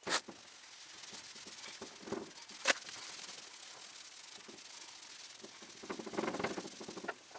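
A solvent-soaked rag scrubbed by hand over painted lettering on a steel truck door, a steady soft rubbing that grows louder about six seconds in, with a sharp click at the start and another about three seconds in. The wax and grease remover is lifting the fresh paint to wear the sign-writing back.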